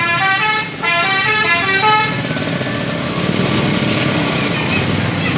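Multi-tone 'telolet' bus air horn playing two quick runs of short notes that step up and down in pitch. It stops about two seconds in, leaving a steady noise of engine and traffic.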